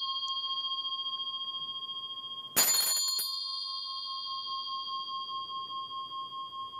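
A shaman's metal hand bell with a vajra-shaped handle, struck again about two and a half seconds in over the fading ring of an earlier strike, then ringing on with a slightly wavering tone that is cut off abruptly near the end. The bell is rung in ritual to call on the spirits.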